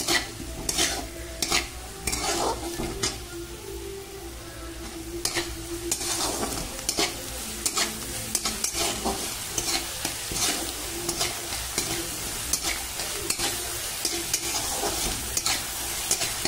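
Chopped onion and tomato sizzling in oil in a pan, stirred with a steel spatula that scrapes and taps against the pan again and again.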